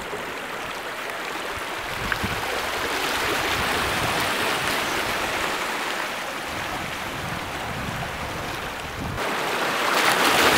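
Steady rush of waves and lapping sea water, growing louder near the end.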